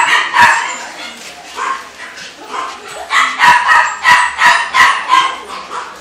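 Dogs barking in short, sharp barks: two near the start, then a quick run of about seven barks, roughly three a second, in the second half.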